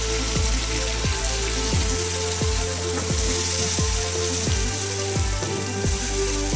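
Shrimp sizzling as they fry, with an even hiss throughout, under background music with a steady beat.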